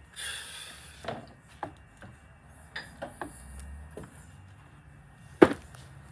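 Things being handled and set down: a short rustle, then scattered light clicks and knocks, with one sharp knock, the loudest, near the end.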